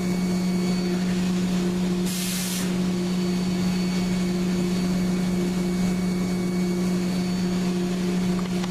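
Haas CNC mill running through its program with a steady machine hum, with a short burst of hiss about two seconds in.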